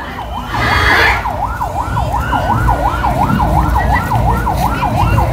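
Electronic yelp siren sweeping rapidly up and down in pitch, about three sweeps a second, over a low rumble. A short burst of noise comes about a second in.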